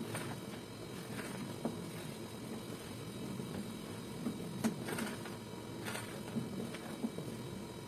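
Wooden spoon stirring a thick, thickening milk cream in a pot, with a soft, steady squelching and a few light clicks of the spoon against the pot's side.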